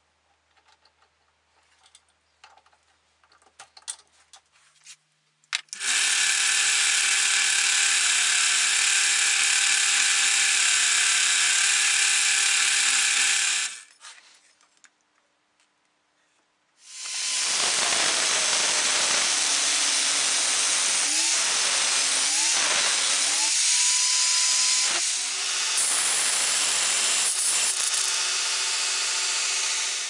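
A drill bit fitted into a drill chuck with small clicks and rattles, then the drill motor running at a steady pitch for about eight seconds. After a short pause a power tool runs loudly again for the rest of the time, cutting or grinding metal, its whine bending in pitch now and then.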